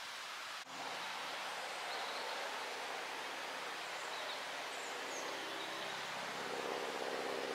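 Outdoor woodland ambience: a steady hiss of breeze through tree leaves, with a few faint bird chirps. About half a second in, the background changes abruptly, and after that a faint low hum sits underneath.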